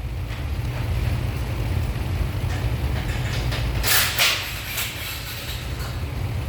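Low, steady rumble of a 1995 Chevy Blazer's 4.3-litre V6 running with a leaking, very loud exhaust, with a brief hissing burst about four seconds in.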